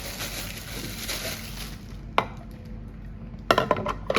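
Packaging rustling, then a sharp click about two seconds in and a quick run of clicks and knocks near the end as hard plastic grinder parts and accessories are handled and set down.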